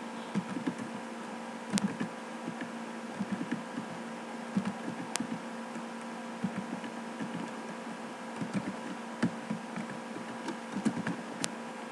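Computer keyboard keys clicking irregularly in short runs as text is typed, over a steady low hum.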